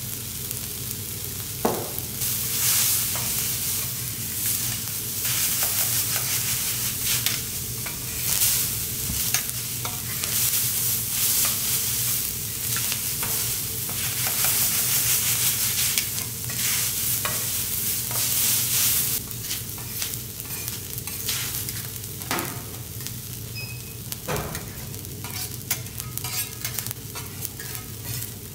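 Food frying on a teppanyaki steel griddle. The sizzle swells louder about two seconds in and eases off for the last third, with metal spatulas scraping and clicking on the plate over a steady low hum.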